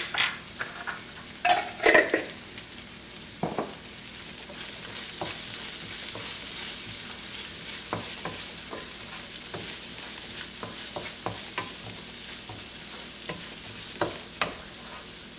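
Chopped onions sizzling in oil in a stainless steel pan, stirred with a wooden spatula that scrapes and knocks against the pan, with a few louder knocks about a second and a half in.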